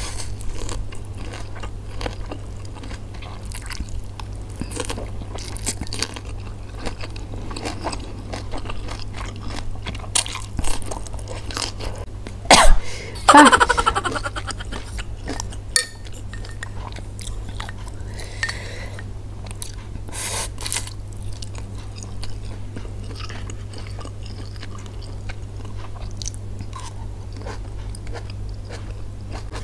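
Close-miked chewing of fried instant noodles, with many small wet clicks and smacks. A little before halfway, a short, loud coughing fit from choking on chili, falling in pitch.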